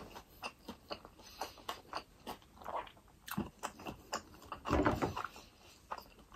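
Close-miked chewing and mouth smacking as a person eats, many short clicks a few times a second, with one louder burst about five seconds in.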